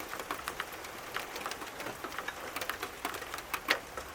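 Rain falling, with many sharp, irregular ticks of drops striking a hard surface close to the microphone; one tick near the end stands out as the loudest.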